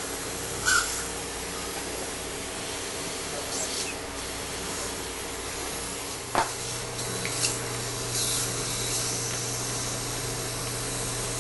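Steady hiss and hum of dental surgery equipment, with a few short, sharper hisses and a single click about six seconds in.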